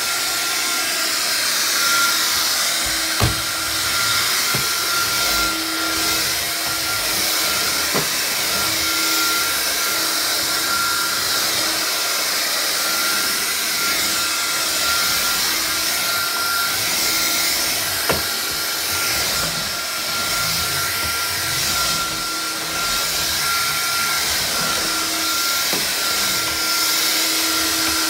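Vax Air Cordless vacuum cleaner running steadily, its motor giving a high whine over a constant rush of air, with a few sharp knocks scattered through.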